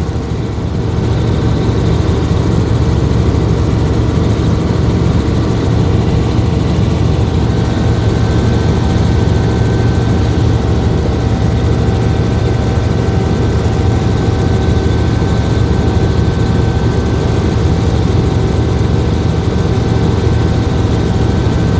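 Helicopter running with a steady, loud drone of engine and rotor.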